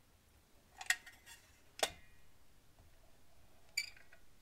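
Hand caulking gun clicking as its trigger is squeezed to push out a thin bead of silicone: three sharp clicks, the first two about a second apart.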